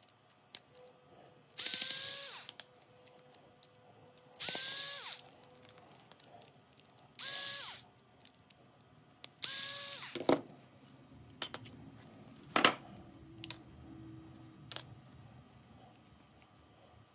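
Cordless screwdriver whirring in four short bursts, about two and a half seconds apart, backing small Phillips screws out of an electric carving knife's housing; each burst rises in pitch as it spins up and drops as it stops. A few sharp clicks and taps follow in the second half.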